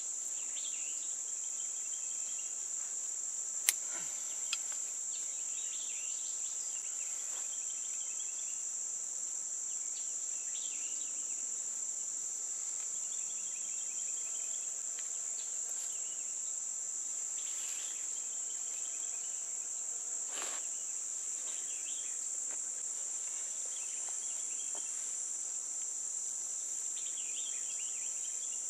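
Steady, high-pitched chorus of insects, with fainter chirps coming and going over it. A few sharp clicks cut through, the loudest about four seconds in.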